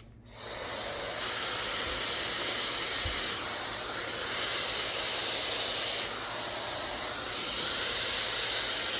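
Blow dryer switched on about a third of a second in, then running with a steady rush of air and a faint high motor whine. It runs a little quieter for a second or so around six to seven seconds in.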